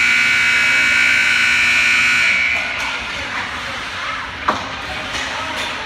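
Ice-rink scoreboard buzzer sounding one steady, several-toned blast that cuts off about two seconds in. Arena background noise follows, with a single sharp knock near the end.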